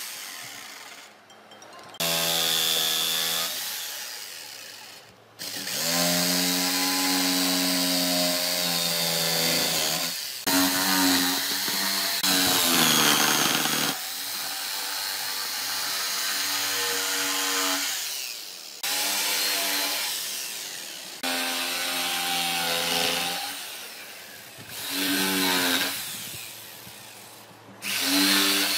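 Makita corded jigsaw cutting through a pine board, its motor whining and its blade sawing the wood. It runs in repeated bursts of a few seconds, dying away between them as the trigger is let off and pressed again.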